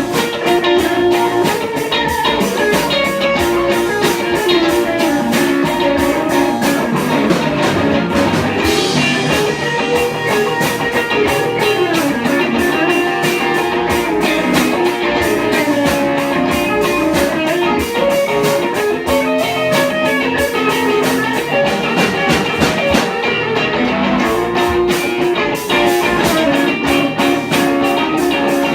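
Instrumental break in a song: guitar to the fore over the band, with no singing.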